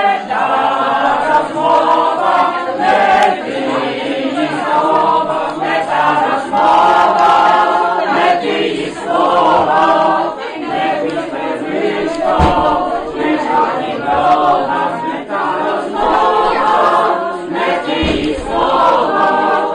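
A group of voices singing unaccompanied, a choral song in long, held phrases.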